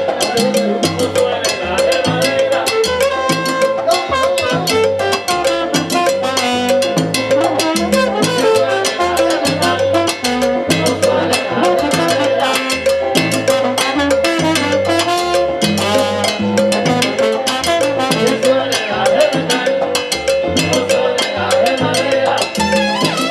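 Live salsa band playing: timbales and cymbal, trombone and bass, with a steady beat.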